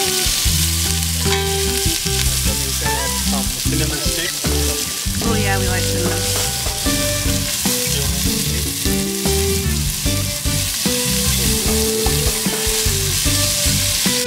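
Food frying in a pan with a steady, loud sizzle, over background music with low, stepping bass notes.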